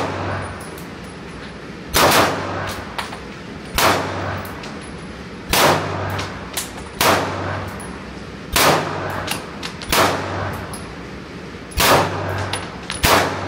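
Nine-millimetre PSA Dagger pistol firing slow, aimed single shots: about nine sharp reports, one every second and a half to two seconds. Each shot rings briefly off the walls of the indoor range.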